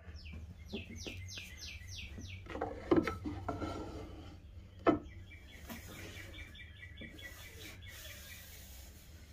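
Osage orange board being set down and handled on a miter saw's metal table, with two sharp knocks about three and five seconds in. A bird chirps in quick series near the start and again in the second half, over a steady low hum.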